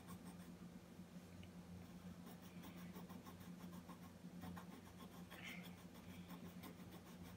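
Faint scratching of a marker colouring on paper, over a steady low hum.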